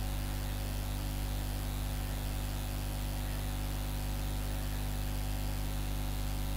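Steady electrical hum with a constant hiss behind it, the background noise of the recording's microphone chain; nothing else stands out.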